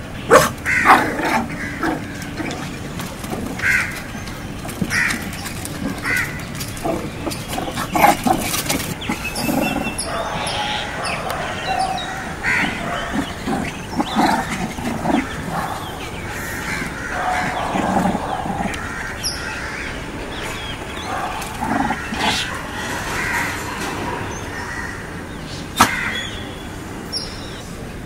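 Young shih tzu puppies giving short, irregular yips and squeals as they play-fight, with a few sharp clicks among them.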